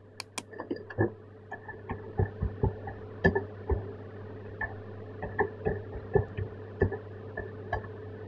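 Computer keyboard typing, in irregular keystrokes, after two quick sharp mouse clicks at the start, over a steady low electrical hum.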